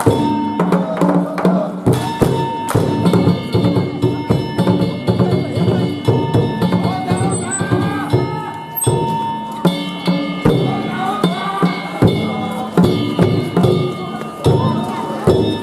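Danjiri festival music: a drum and small hand-held gongs beaten in a quick, steady rhythm, with the gongs ringing.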